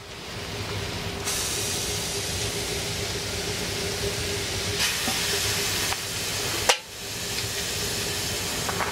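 Beer poured into a hot pan of smokies on a wood stove, hissing and sizzling steadily as it hits the metal and boils. This is the start of boiling the beer down to a caramelized coating. The sizzle drops out briefly about two-thirds of the way through, then carries on.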